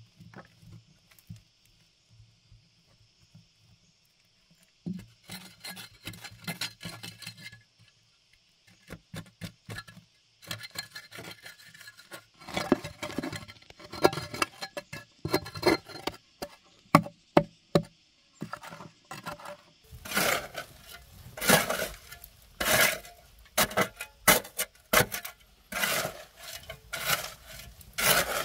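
Short-handled spade scraping and scooping loose dry earth and small stones, with scattered clicks and scrapes at first. About two thirds of the way in this becomes a steady run of louder scrapes, roughly one a second.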